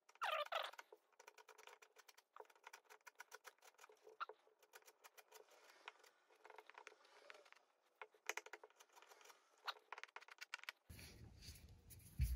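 Wood chisel scraping partly cured Bondo wood filler off painted door trim: faint, irregular scraping strokes and small clicks of crumbling filler, the loudest scrape just after the start.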